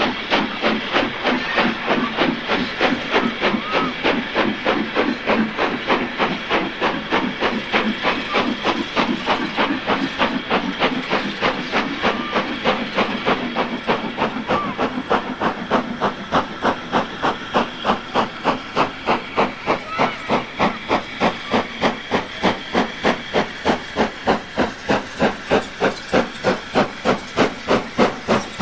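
Steam locomotive working hard under load, its exhaust beating in a fast, steady chuff with a continuous steam hiss. The beats grow more distinct toward the end.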